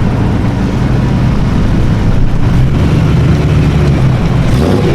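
Car engine running loudly, a deep steady rumble with stacked low engine tones.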